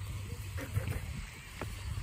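Wind rumbling on a phone microphone outdoors, with faint soft clicks and rustles.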